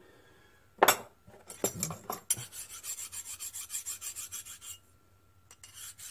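Hand file scraping back and forth on a small steel governor part, taking off burrs, at about four to five strokes a second. A sharp clack comes about a second in, then a few knocks as the part is handled. The filing stops briefly near the end, then starts again.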